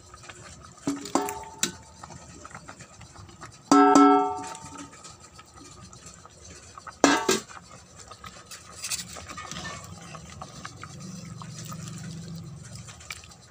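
Metal cookware clanking: a few light knocks, then a loud ringing clang about four seconds in and a sharp knock about seven seconds in, like a steel pot, lid or bowl being struck or set down.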